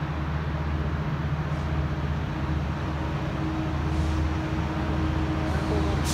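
Metrolink F125 diesel locomotive approaching the station: a steady, low engine drone that grows slowly louder.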